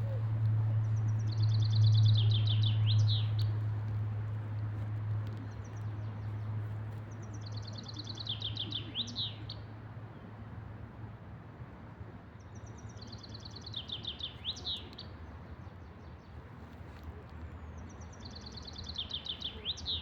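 A songbird sings the same song four times, about every six seconds: a fast run of notes that drops in steps and ends in a brief flourish. Under it runs a steady low rumble, loudest in the first few seconds and then fading.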